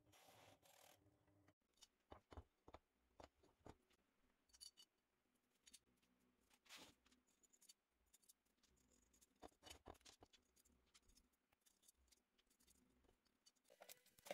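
Faint, scattered clicks and light metallic taps of bolts, washers and bearings being handled and fitted into square metal profiles, at an irregular pace.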